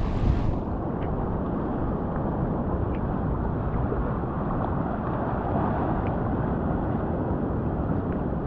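Steady low rumble of wind on the microphone over the wash of surf on the beach; the hiss in the upper range drops away less than a second in.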